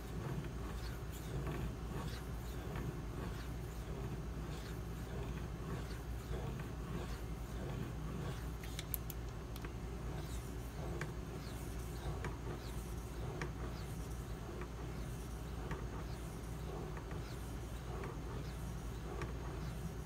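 A 52100 steel knife blade being stroked across a wet fine-grit Shapton Pro waterstone carrying only a thin slurry: a soft, continuous scraping with small irregular ticks, over a steady low hum.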